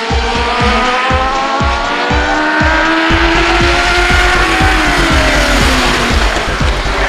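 Music with a steady beat of about three thumps a second, mixed with Legend race cars' engines whose pitch rises and then falls as they pass.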